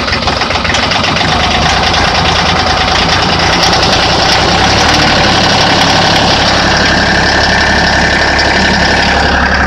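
LS compact tractor's diesel engine running rough at idle just after a cold start, loud and steady.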